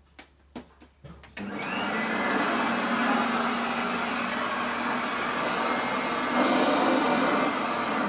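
A few clicks, then a vintage upright vacuum cleaner's motor starts at its high setting, winding up with a short rising whine and running steadily over thick carpet. About six and a half seconds in it turns louder and brighter as the drive belt comes off.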